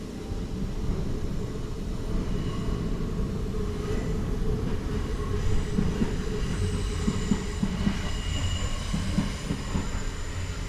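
A steady low mechanical rumble with faint high-pitched squealing tones above it.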